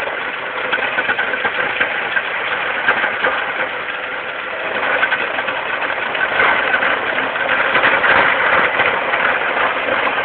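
Gehl skid-steer loader working an asphalt milling attachment: the engine running under load while the drum grinds up asphalt, a dense crackling racket that grows louder about halfway through.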